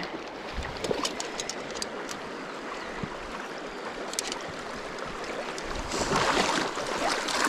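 Shallow stream running and rippling over stones. From about six seconds in, louder splashing as a hooked trout is brought to the landing net in the shallows.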